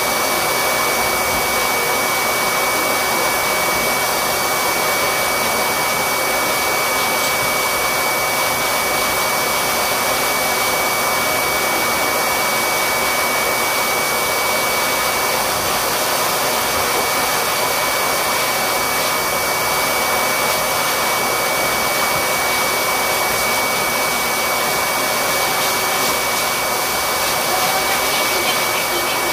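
A motor-driven air blower, like a grooming shop's pet dryer, running steadily, its rushing air carrying a thin, steady high whine.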